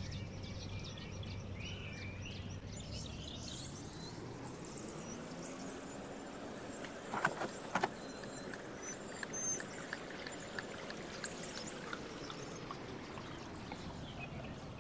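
Outdoor morning background of birds calling now and then over a steady hiss, with two sharp knocks about half a second apart a little past the middle.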